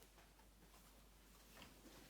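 Near silence: room tone, with a few faint small clicks near the end.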